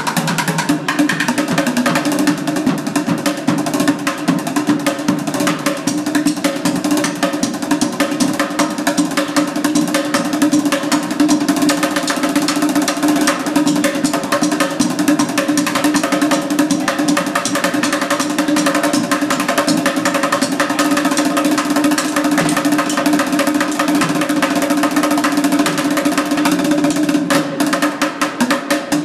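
Two drummers beating upturned plastic buckets with drumsticks, playing a fast, continuous rhythm of dense, rapid strikes.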